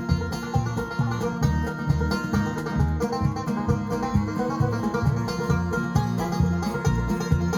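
A band playing an upbeat string-band tune, with bass, guitar, fiddle and percussion; the bass notes keep a steady beat.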